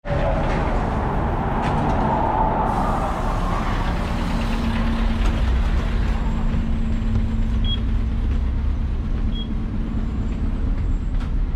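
City bus running, heard from inside the passenger cabin as a steady low engine drone. Two short high beeps sound in the second half, under two seconds apart.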